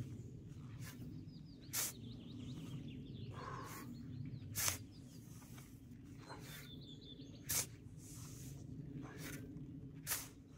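Outdoor ambience with a steady low background rumble and two short runs of bird chirps. Sharp knocks or clicks come every two to three seconds and are the loudest sounds.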